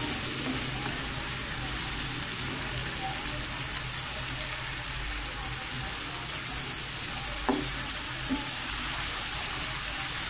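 Tomato masala with green chillies sizzling in oil in a non-stick frying pan while a spatula stirs and mashes it, the tomatoes cooked down to a paste. A couple of brief knocks come about three-quarters of the way through.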